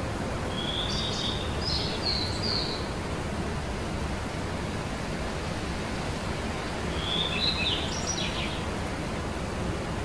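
Small songbirds chirping: two short bursts of quick high chirps, one about a second in and one near seven seconds in, over a steady rushing hiss.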